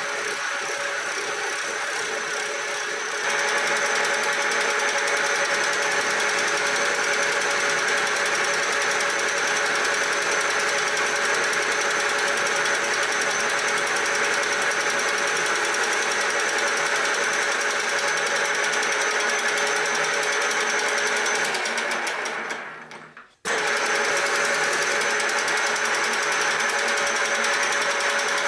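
Milling machine side-cutting a metal block with a spinning end mill: a steady cutting sound with a high ringing tone, stepping up in loudness about three seconds in. It fades out and cuts off briefly near the end, then the cutting resumes at the same level.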